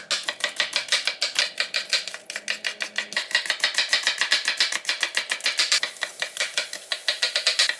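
Chef's knife chopping on a wooden cutting board, first through onion and then through red bell pepper: rapid, even knife strikes, several a second.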